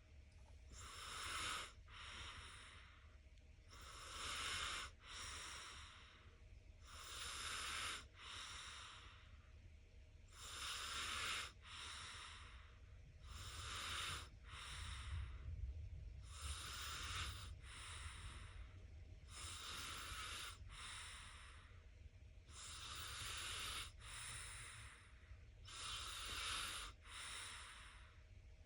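A three-year-old child snoring in its sleep: a soft, noisy breath about every three seconds, each breath in two parts, with no voice in it.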